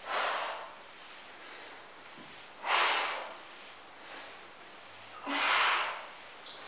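A woman breathing out hard with effort, three sharp breaths about two and a half seconds apart, in time with kettlebell twist repetitions.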